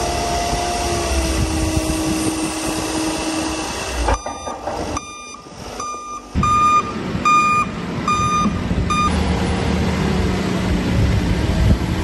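Manitou telehandler's diesel engine working under load. About four seconds in, the engine drops away and a reversing alarm beeps about twice a second for some five seconds. Then the engine runs on.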